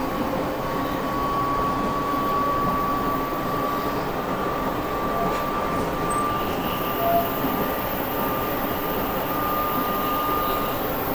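Running noise of a JR Shikoku 8000 series electric express train at speed, heard from inside the car: a steady rumble of wheels on rail with a steady high whine that edges slightly higher in pitch near the end.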